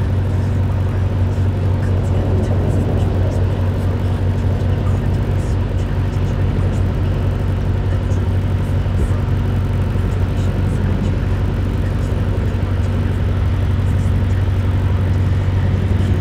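A motor cruiser's engine running steadily under way, a constant low drone that holds the same pitch throughout.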